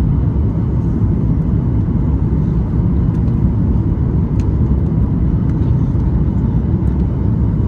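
Cabin noise of a Boeing 737-8 MAX on final approach, heard inside the cabin by the wing: a steady low rumble from its CFM LEAP-1B engines and the airflow past the airframe.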